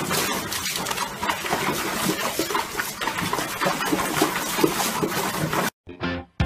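Water splashing and churning fast and hard as a golden retriever puppy paws at it in a plastic tub, in one loud continuous stretch that cuts off abruptly near the end.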